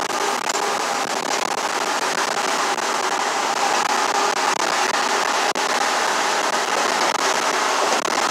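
Steady road noise heard inside a moving vehicle's cabin: tyre and wind noise with a faint, even engine drone underneath.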